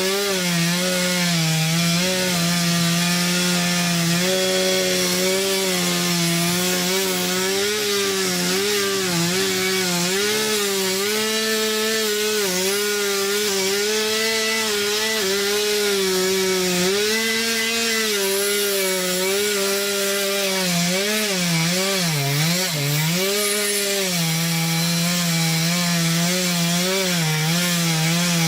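Small two-stroke chainsaw with a 15-inch bar cutting through ash wood at high revs. Its pitch dips repeatedly as the chain bites and the engine bogs under load, with the deepest dips a little over 20 seconds in.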